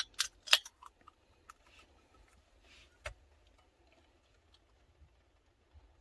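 Aluminium beer can handled on a tray table: a cluster of short, sharp clicks and hisses in the first second, then a few fainter ticks and one soft hiss up to about three seconds in.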